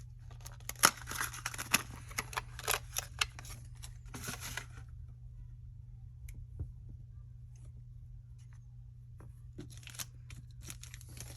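Scratchy scraping and rubbing with sharp clicks as grime is cleaned by hand off small Glock 43 pistol parts. It dies down about five seconds in and picks up again near the end, over a steady low hum.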